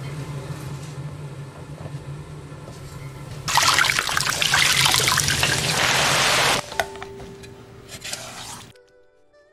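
Scored fillet lowered into a wok of hot oil: a sudden loud sizzling and crackling of deep-frying starts about three and a half seconds in and stops abruptly about three seconds later. Before it there is a steady low kitchen hum.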